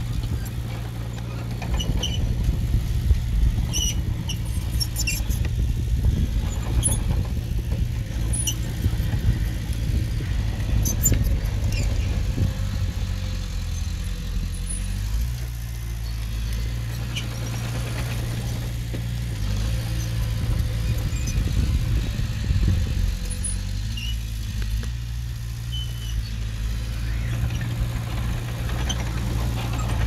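Diesel engine of a small crawler bulldozer running steadily under work, with scattered short high-pitched squeaks and metallic clinks over it.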